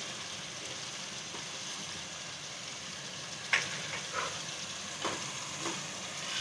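Sliced onions and green chillies sizzling steadily in hot oil in an aluminium pot, with a few sharp clicks from the second half onward.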